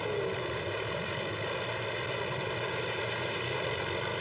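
P-51 Mustang fighters' piston engines running steadily on the ground, their propellers turning, with an unchanging drone.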